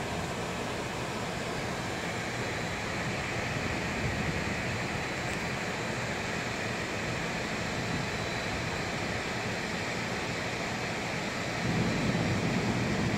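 Steady background hiss and rumble with no distinct events; the low rumble gets louder near the end.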